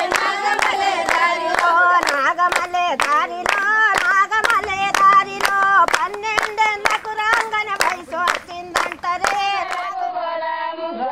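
A group of women singing a song together while clapping a steady beat, about three claps a second. Near the end the clapping stops and the singing goes on.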